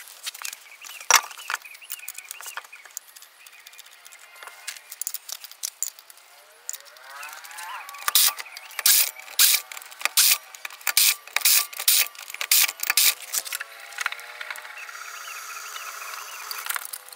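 Wheel bolts being fitted and tightened on a car's front wheel with a ratchet wrench: a run of short metallic clicks and clinks, busiest in the middle.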